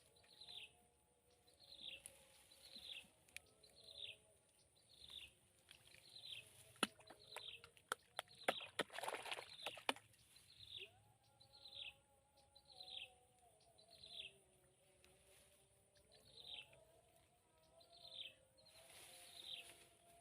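Faint swamp background: a small animal calls with a short falling chirp repeated evenly, a little faster than once a second, over a steady high whine of insects. Near the middle comes a short patch of sharp clicks and rustling.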